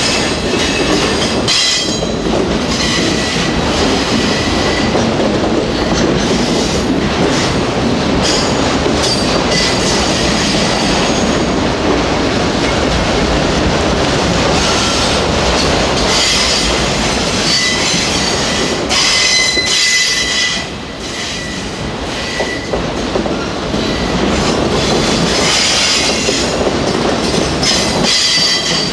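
Autorack freight cars of a Union Pacific train rolling past close by: a loud, steady rumble of steel wheels on rail, with high wheel squeal coming and going. The rumble drops briefly about two-thirds of the way through.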